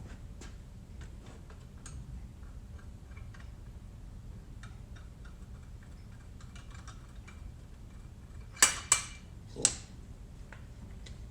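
Light clicks and taps of metal engine parts and tools being handled, with three sharp metallic clatters close together about two-thirds of the way through, over a steady low hum.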